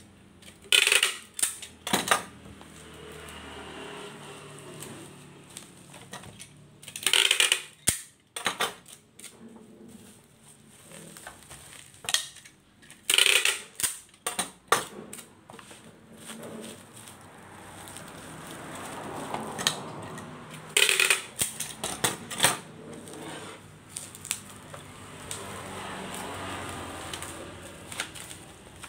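Packing tape pulled off a hand-held tape dispenser in about five short, loud rips, with bubble wrap crinkling and rustling under the hands between them as a package is taped up.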